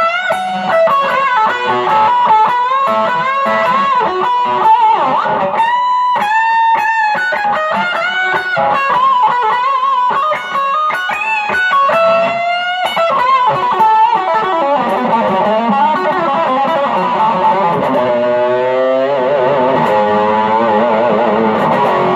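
M-Musi Virgo Fusion electric guitar played through an amp: an improvised lead of single notes with string bends and vibrato. In the second half the notes waver widely, with a sliding drop in pitch a few seconds from the end, followed by fast wobbling notes.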